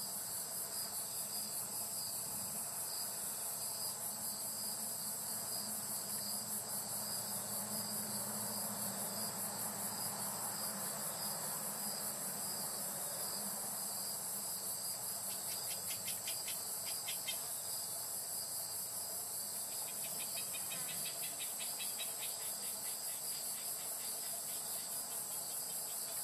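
Steady, high-pitched chorus of singing insects with a fast pulsing shimmer. A second, lower ticking trill joins twice in the latter half.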